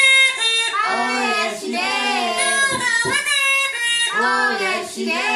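High-pitched, squeaky puppet voice of Mr. Punch singing a tune.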